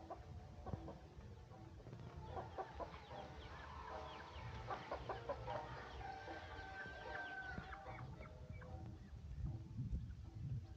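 Backyard fowl calling: chickens clucking amid a flurry of short calls and chirps, busiest from about two to eight seconds in.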